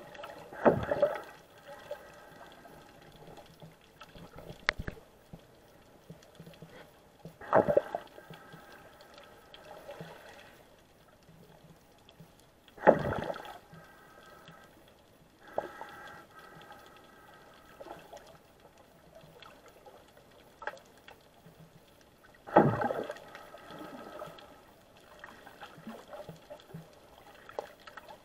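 Muffled underwater water sounds picked up through an action camera's waterproof housing: four loud gurgling surges of moving water several seconds apart, over a low steady hiss.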